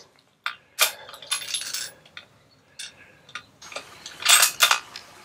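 Sharp metallic clicks and short rattles close by, scattered irregularly, with the loudest pair about four seconds in.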